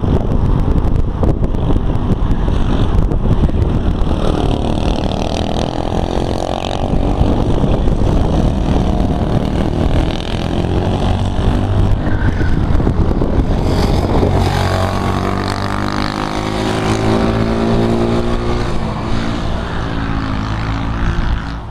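Kart's modified 196cc Honda GX200 single-cylinder four-stroke engine running hard on track, its pitch dipping and climbing through the corners, then rising steadily over the last several seconds as the revs build. Wind buffets the microphone in the first few seconds.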